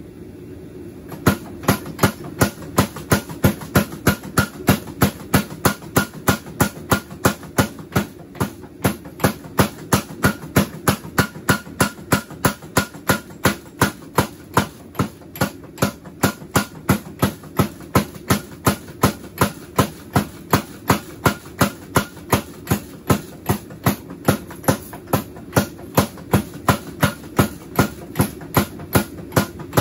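Homemade 53 lb beam power hammer striking a hot steel bar: its dies hit in a steady rhythm of about three blows a second, starting about a second in, over a steady hum.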